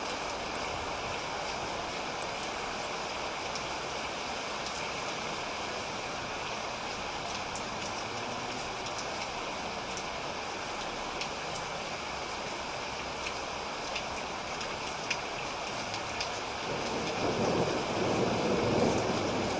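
Steady rain falling, with a few sharp drip clicks scattered through. Near the end a low rumble of thunder builds and grows louder.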